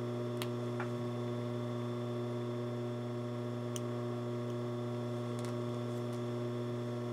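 A steady low electrical hum, with a few faint clicks of small scissors snipping loose threads.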